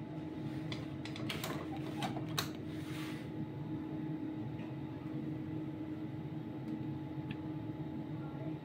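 ATM card reader clicking and rattling as a bank card is pushed in during the first few seconds, over the steady hum of the ATM.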